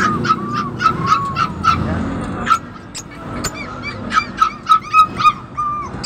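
Caged lovebirds chirping and squawking in a rapid run of short, shrill calls, several a second and overlapping, easing off briefly about halfway before picking up again.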